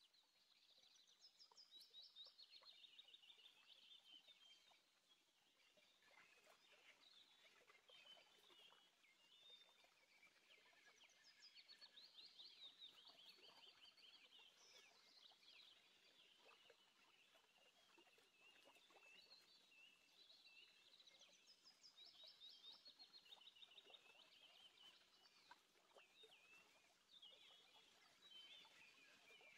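Faint chirping and rapid trilling of small birds, many calls overlapping throughout.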